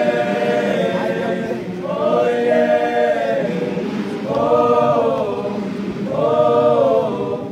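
A massed school choir of boys singing a gwijo, the Southern African call-and-response school chant, a cappella in harmony. A long held chord opens, then three short swelling phrases follow about two seconds apart.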